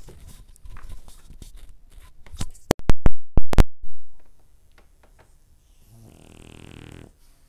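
A microphone being handled and thrown, with rustling and then a cluster of very loud knocks about three seconds in as it lands. Near the end, one soft snore from a sleeping dog, lasting about a second.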